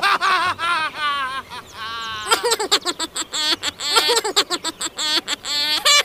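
Budgerigars chattering and warbling: quick squeaky notes that rise and fall, turning after about two seconds into a fast run of clicks mixed with short chirps.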